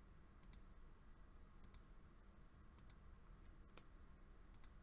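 Faint computer mouse clicks: five press-and-release pairs, about one a second.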